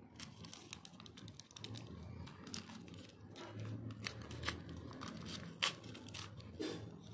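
Paper wrapping crinkling and tearing in irregular crackles as a small wrapped toy is unwrapped by hand.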